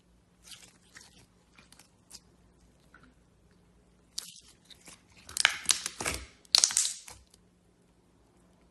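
Slime being pressed and worked by hand, giving sharp crackles and pops: a few scattered ones at first, then a louder, denser run of crackling about four seconds in that dies away after about three seconds.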